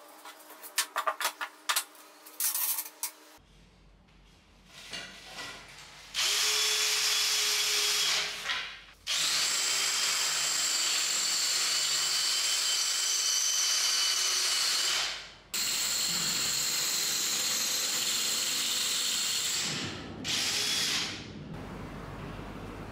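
Handheld power drill boring into a ceiling, running in three long stretches of a few seconds each with a steady high motor whine, then one short burst. Before the drilling there is a quick run of sharp clicks and knocks.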